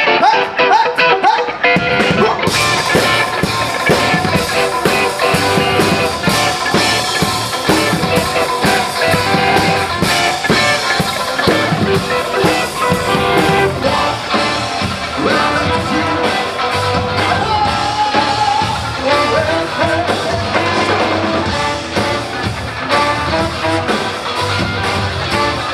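Live funk band playing, with electric guitar over bass and drums; the cymbals and full band come in about two seconds in.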